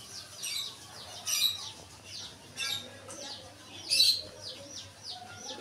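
Domestic chicks peeping: a string of short chirps that fall in pitch, the loudest about one and a half, two and a half and four seconds in.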